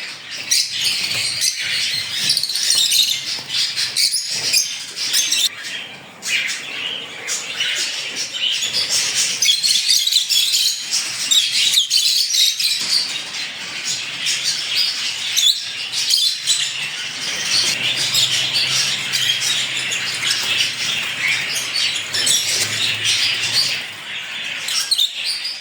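A flock of small parrots, lovebirds among them, chirping and chattering continuously, with wings flapping now and then.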